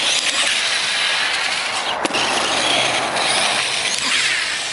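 Small RC truck's motor whining high, its pitch rising and falling twice as the throttle is worked to drive up the jump ramp, with a sharp click about two seconds in.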